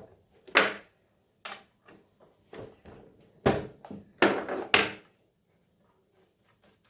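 Several sharp clacks and clatters of a scrench and the bar nuts being handled as the bar nuts are taken off a Stihl MS170 chainsaw's clutch cover.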